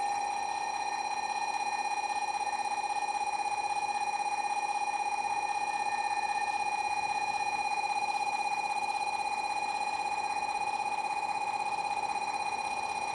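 Platform warning bell for an arriving Shinkansen: an electronic ring on one high pitch, pulsing rapidly and steadily.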